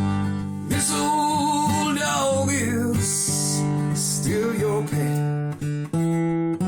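Acoustic guitar strummed in a song, with a wavering melody line over the chords from about a second in.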